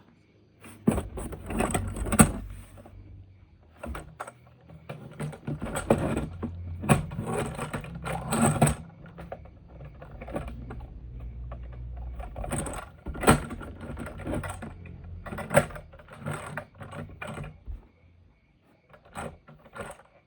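Plastic toy vehicles being handled and rolled on a hard surface: scattered knocks and clicks over a low rumble of small wheels, dying away near the end.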